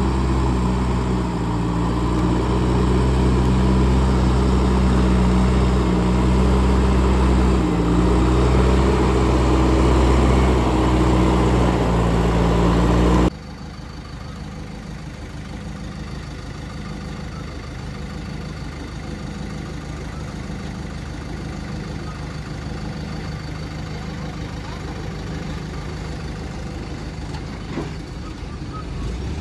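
Heavy diesel engine of construction machinery running with a steady low drone; about thirteen seconds in it drops suddenly to a quieter, more distant engine hum.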